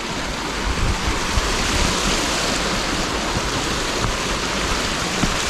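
A small stream of water running over rocks beside and across a trail: a steady rushing hiss, with irregular low thumps under it.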